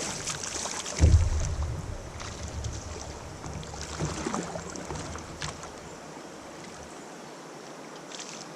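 Kayak and water sounds while a small fish is brought in: a loud knock against the kayak about a second in, scattered splashes and clicks, and a low rumble on the microphone that drops away about seven seconds in.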